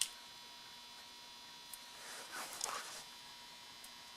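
Faint steady electrical hum, with a sharp small click at the start and a brief rustling scrape about two seconds in, from small ignition-switch parts being handled and actuated.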